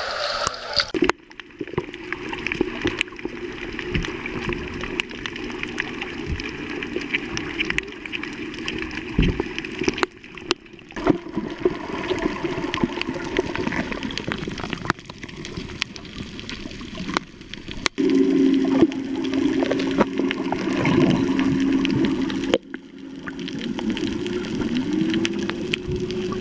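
Water noise picked up by a camera held underwater while snorkelling and freediving, broken by brief drops where the clips are cut, with a steady low hum joining in over the last third.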